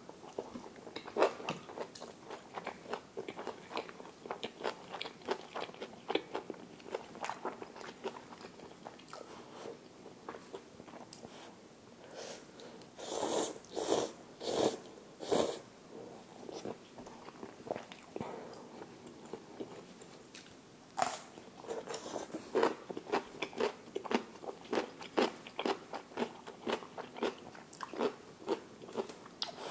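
Close-up mouth sounds of eating: chewing with many small wet, crunchy clicks. About halfway through comes a run of several loud slurps of ramyeon noodles, followed by more chewing.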